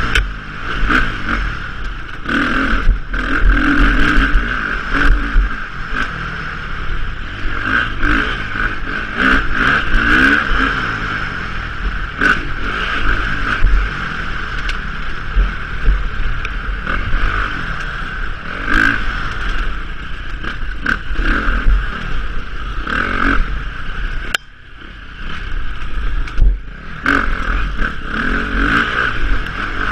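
A 2015 KTM 350 XCF-W Six Days' single-cylinder four-stroke engine revving up and down under hard throttle on a race trail, with repeated knocks and clatter from the bike over rough ground. Late on, the revs drop away for about two seconds, then pick up again.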